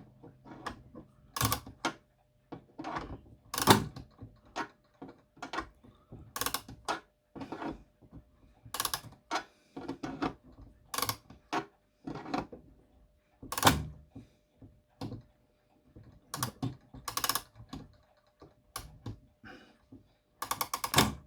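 Mantle clock's mainspring being wound with a key: short sharp ratchet clicks in irregular groups, with the odd handling knock.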